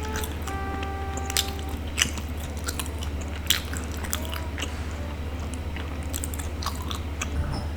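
Close-up chewing and biting of a sticky glutinous rice ball, with irregular wet mouth clicks and smacks.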